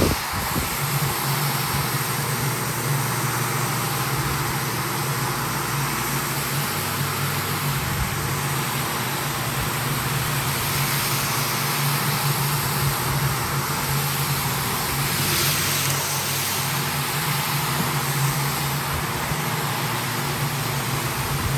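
Single-disc rotary floor machine running steadily, its brush scrubbing shampoo foam into a rug: a steady motor hum under the hiss of bristles working through the wet foam.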